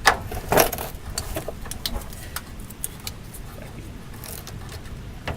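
Sharp metal clicks and clinks of a wrench working a fuel-tank strap bolt loose, several in the first two seconds, then sparser.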